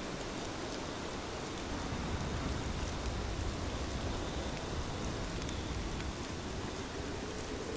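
Water sounding steadily as an even hiss, with a few light ticks on top.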